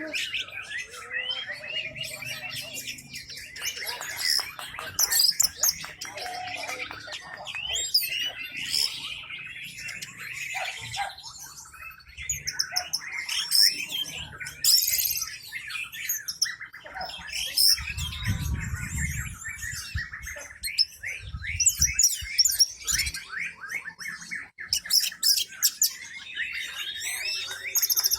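Orange-headed thrush singing a long, unbroken, varied song of rapid chirps, trills and whistles, with a brief low rumble about eighteen seconds in.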